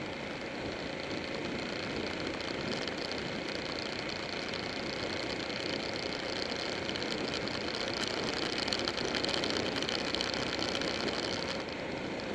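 Buell 1125R's V-twin engine running at road speed under a steady rush of wind noise, swelling a little past the middle and easing just before the end.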